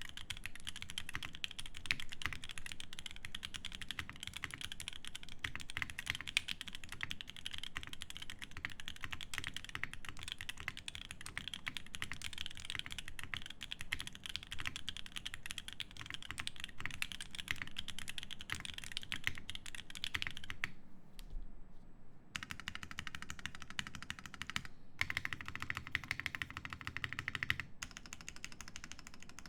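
Continuous fast typing on a Portal mechanical keyboard with lubed H1 switches, an FR4 plate and GMK keycaps: a dense run of keystrokes. The typing breaks off for about a second and a half roughly two-thirds of the way through, then resumes.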